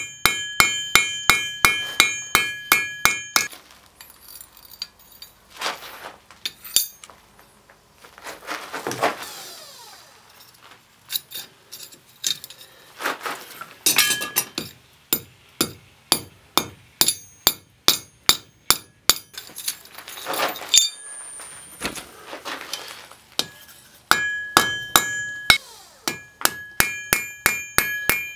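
Hand hammer striking hot steel on an anvil, forging a rebar compass's legs and peening its red-hot pivot rivet. The fast runs of blows at the start and again near the end ring clearly off the anvil. In between the blows come slower and duller, with short lulls.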